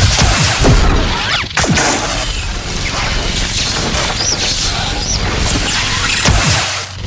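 Custom 'Rage' lightsaber soundfont, modelled on Kylo Ren's saber, as the steady humming, crackling blade is swung in quick sweeps that glide in pitch, with clash hits. Swings come at the start and again near the end; the crackling hum carries on between them.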